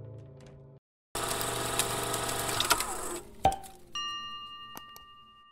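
End-card animation sound effects: a music tail fades out, then about two seconds of loud whirring, rattling noise with clicks and a thump, followed about four seconds in by a bright notification-bell ding that rings out and fades.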